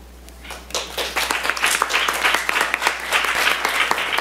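Audience applauding, the clapping starting about half a second in and quickly filling out into steady applause.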